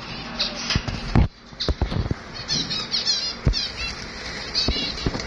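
Small cage birds chirping over and over in short high chirps, with wings fluttering as a bird flies inside the cage. A few sharp knocks come through as well, a cluster about a second in and single ones later.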